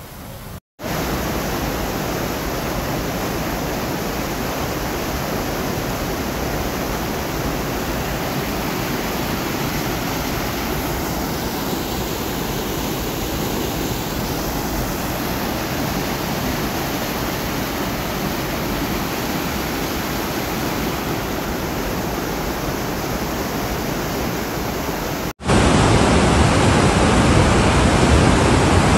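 Floodwater rushing across a wadi, a steady, even rush of water. Near the end it cuts abruptly to a louder, fuller rush of a muddy flood torrent.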